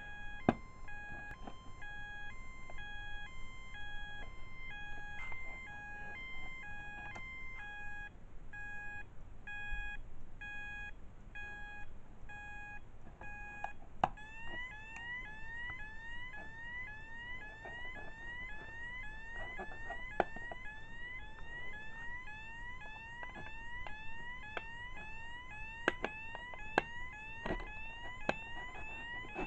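Vector Platform fire-alarm sounder base sounding its alarm tones. For the first half it alternates between two pitches. About halfway through it switches to a fast, repeating rising sweep. A few sharp clicks come in between.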